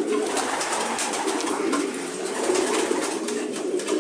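A loft full of racing pigeons cooing together in a dense, unbroken chorus, with scattered light clicks and taps over it. The cooing is the cocks calling to their hens as the hens come home from a race.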